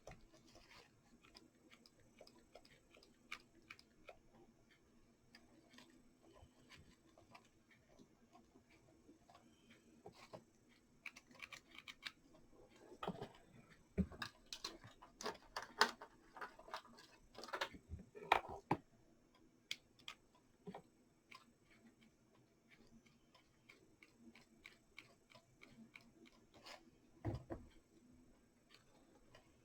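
Faint clicks, snips and crinkles of artificial flower stems being trimmed and fitted into place, busiest from about 11 to 19 seconds in, over a low steady hum.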